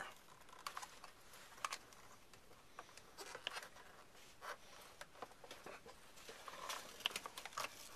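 Faint scattered clicks, taps and rustles of hands working the old drive belt off the pulleys inside an Oreck upright vacuum's brush housing, a little busier near the end.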